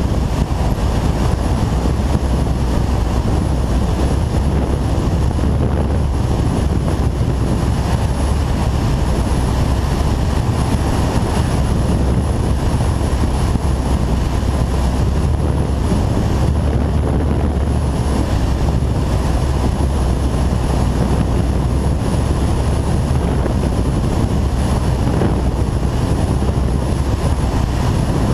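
Steady rush of wind and engine noise from a Kawasaki ZZR1400 motorcycle being ridden, with no change in pace.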